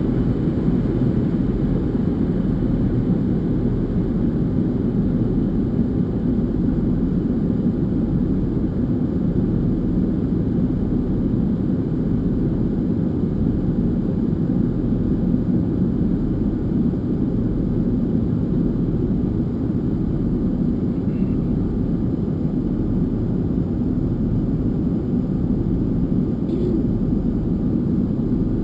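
Steady low drone inside an airliner cabin in flight: engine and airflow noise heard from a window seat.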